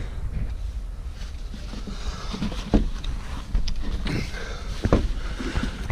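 A few sharp knocks and some faint rustling as someone moves about and handles things inside an excavator cab with the engine off, over a steady low rumble.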